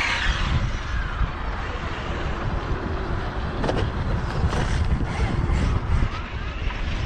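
Losi Super Baja Rey electric RC truck's brushless motor whining faintly, rising and falling in pitch as it is driven on ice, over a low, uneven rumble of wind on the microphone. A few brief clicks near the middle.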